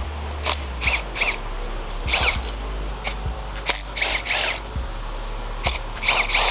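Masking tape being ripped off a freshly painted engine block: a series of short, rasping tears with a squeal to them, some in quick pairs, over a low steady hum.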